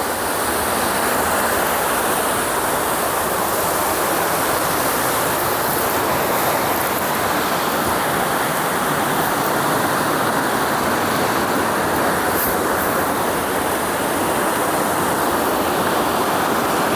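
Waterfall cascading over rocks: a loud, steady rush of falling and tumbling water.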